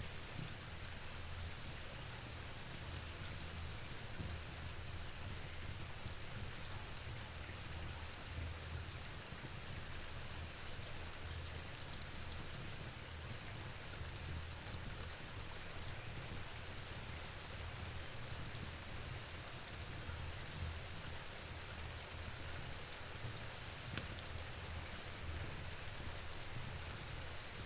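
Steady rain falling, an even hiss over a low rumble, with scattered faint clicks of drops.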